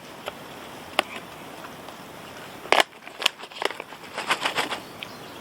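Crinkling and sharp clicks of a foil freeze-dried meal pouch being handled and torn open: a few single clicks, then a quick run of crackles about four seconds in.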